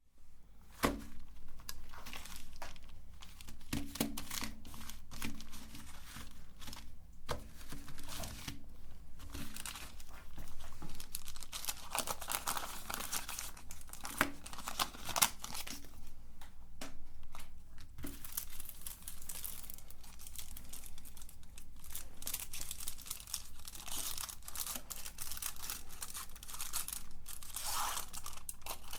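Chocolate bar wrappers being torn open and crinkled by hand, an irregular run of crackles and rips.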